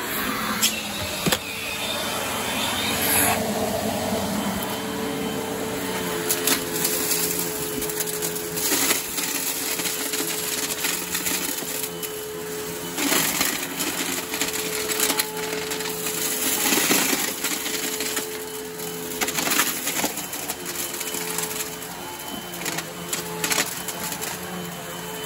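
Bagged Riccar 8905 vacuum cleaner running steadily with a humming motor tone, picking up debris that crackles and clicks through the hose again and again.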